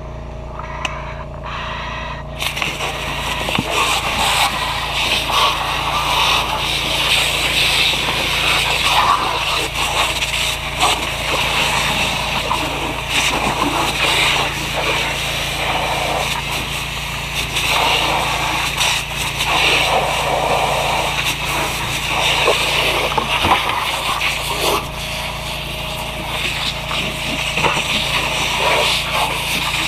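A fire hose line spraying onto a burning car: a rushing hiss of water that starts suddenly about two seconds in and keeps surging unevenly, over the steady low hum of an idling engine.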